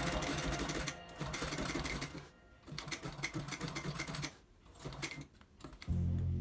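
Sewing machine stitching through leather with a fast, even ticking, stopping briefly twice as the work is guided. Background music comes back in loudly near the end.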